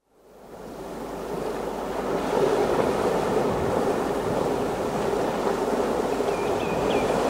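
Ocean surf sound effect: a steady wash of breaking waves that fades in over the first couple of seconds, with a few short seagull cries near the end.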